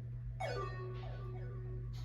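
A single synthesizer note played back during music production: it starts with a quick downward pitch slide, holds steady for about a second and a half, then fades, over a steady low hum.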